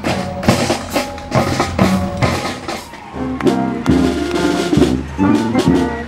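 Drum line of snare and bass drums playing a steady marching beat. About three seconds in, instruments playing held, pitched notes join the drums.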